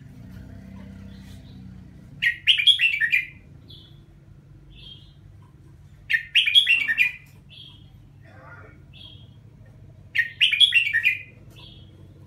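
Caged red-whiskered bulbul singing: three loud, quick warbled phrases about four seconds apart, with short softer notes in between, the bird repeating its song in a loop.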